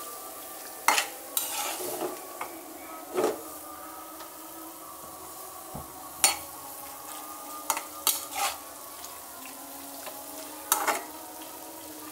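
A spatula stirring and scraping small pieces of marinated meat in a non-stick wok, with a steady low sizzle and irregular sharp scrapes and taps of the spatula against the pan. The meat is cooking in the water it gives off, with no water added.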